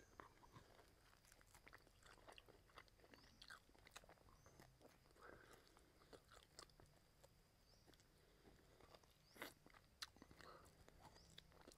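Faint, close-miked chewing and gnawing on grilled pork rib meat: soft wet mouth clicks and smacks, with a couple of louder smacks about nine and a half and ten seconds in.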